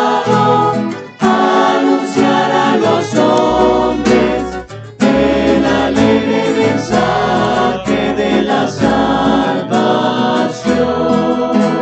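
Choir singing a hymn with instrumental accompaniment.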